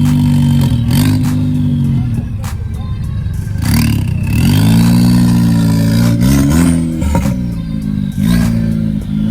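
Turbocharged tuner car engine revving several times, rising and falling, with a high turbo whistle climbing during the rev about four seconds in. Sharp short cracks come between the revs.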